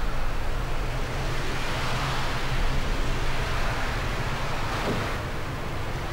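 Car engine idling as a steady low rumble under a hiss that swells and eases a couple of times.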